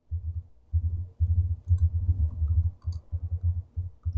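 Typing on a computer keyboard: a quick run of dull, muffled keystrokes with a few short pauses.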